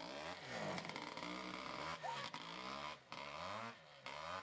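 Trial motorbike engine revving up and down several times, its pitch rising and falling in repeated swells, heard faintly.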